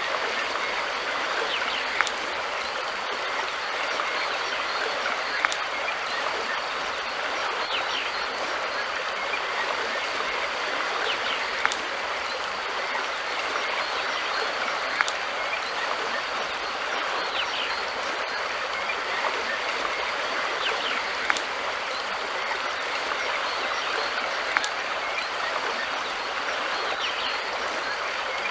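River water flowing steadily over a shallow stretch, an even rushing. A sharp click cuts through it about every three seconds.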